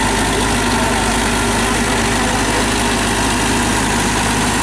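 TAFE 5900 DI tractor's diesel engine running at a steady speed as the tractor works through deep mud.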